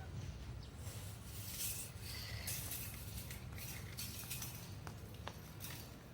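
Handling noises: irregular rustling and swishing with a few light clicks, over a low steady hum.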